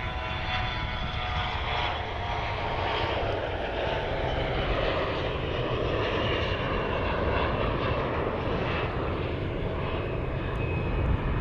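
Twin turbofan engines of a CRJ-900 regional jet at takeoff power, running as a steady roar with a thin whine on top as the jet lifts off and climbs away, swelling a little about halfway through.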